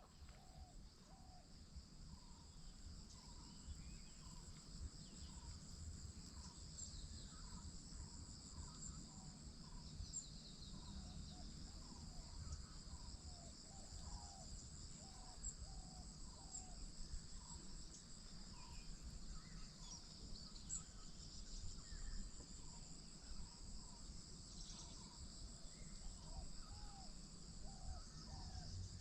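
Insects chirring steadily in two high pitches, with many short calls repeating lower down over a faint low rumble. It fades in over the first few seconds.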